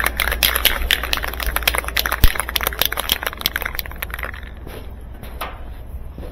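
Aerosol spray paint can being shaken, its mixing ball rattling in quick clicks, which stop about four seconds in and give way to a few light handling knocks.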